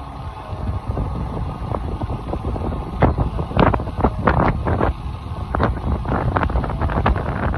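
Wind rushing over the microphone of a camera on a moving road bike, a steady low rumble with irregular louder gusts.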